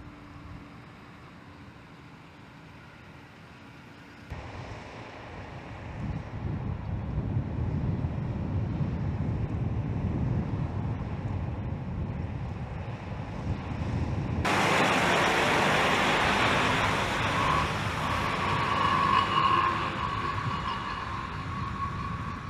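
Heavy-haul semi truck and multi-axle oversize-load trailer carrying an aircraft fuselage: diesel engine and tyre rumble that builds as the rig comes closer. A louder, brighter road noise follows, with a steady higher whine near the end.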